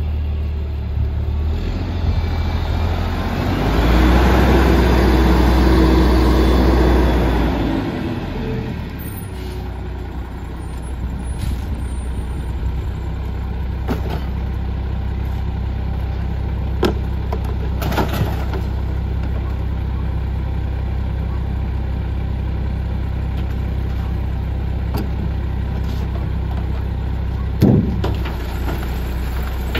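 Mack MR garbage truck's engine getting louder as the truck pulls up, then idling steadily. A few sharp clunks from recyclables being tossed into the McNeilus rear loader's hopper by hand, the loudest near the end.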